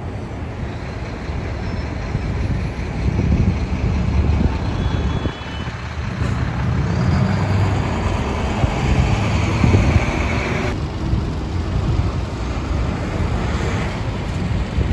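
City street traffic noise: a steady rumble of passing cars, trucks and buses.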